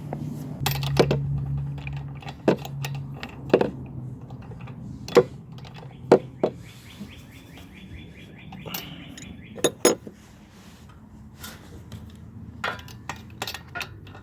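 Metal hand tools clinking and knocking while a spark plug is refitted, with a socket ratchet clicking rapidly for a couple of seconds in the middle. A low hum runs under the first few seconds.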